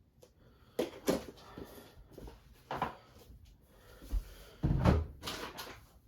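Handling noises: a few sharp knocks and clatters with rustling between them, the loudest cluster near the end.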